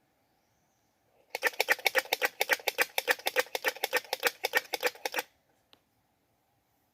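A squirrel's rapid chattering call: a fast, even run of sharp clicks, about ten a second, lasting roughly four seconds and then stopping abruptly. It is given as a squirrel calling for a mate.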